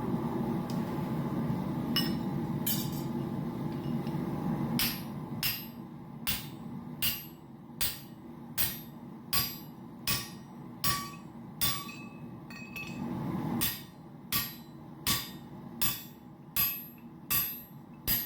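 Hand hammer striking hot titanium on an anvil in steady, evenly spaced blows, about one every three-quarters of a second, each with a short metallic ring, flattening the forged piece. A steady roar, likely the forge, fills the first few seconds and briefly returns partway through.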